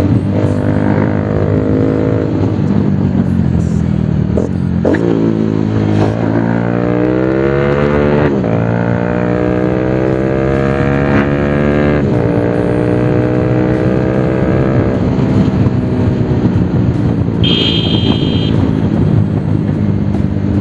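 Bajaj Pulsar 220's single-cylinder engine through an aftermarket SC Project exhaust, accelerating through the gears while riding. The pitch climbs, drops back at shifts about 5, 8 and 12 seconds in, then holds steady at cruise. A short horn beep sounds near the end.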